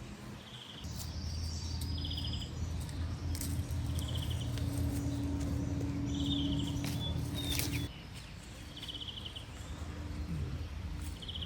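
Outdoor rural ambience: a short buzzy chirp repeats about every second and a half. Under it, a low steady hum runs from about a second in and stops suddenly near eight seconds.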